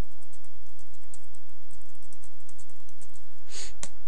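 Computer keyboard typing: a quick, uneven run of light key clicks as a username and password are typed, over a steady low hum. Near the end comes a short hiss, then a single sharper click.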